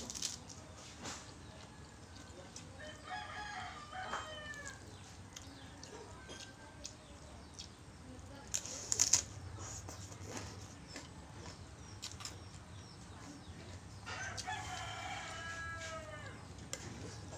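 Close-up eating sounds, slurping and chewing instant noodles, with short clicks and crunches and a loud slurp about nine seconds in. A rooster crows twice, about three seconds and about fourteen seconds in.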